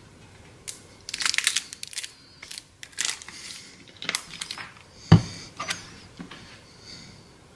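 Bursts of scraping and crinkling as a container of dulce de leche is scraped out with a spoon and handled, with one sharp thump about five seconds in.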